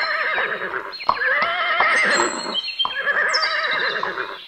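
Horse whinnying three times in a row, each a long, quavering call.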